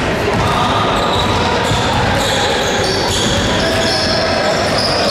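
Echoing sports-hall hubbub: many children's voices overlapping, with basketballs bouncing on the court.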